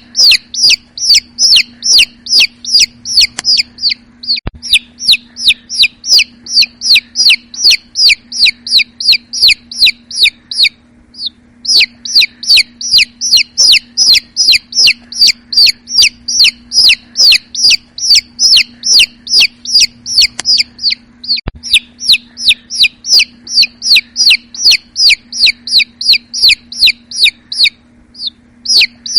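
Chicks peeping loudly and continuously: rapid high-pitched peeps that each drop in pitch, about three to four a second, pausing briefly about eleven seconds in and again near the end.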